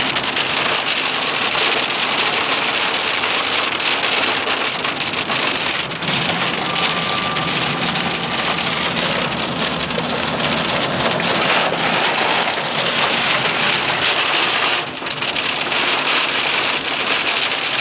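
Rain beating on a car's roof and windshield, heard from inside the cabin as the car drives on a wet road: a steady dense hiss that eases briefly about fifteen seconds in.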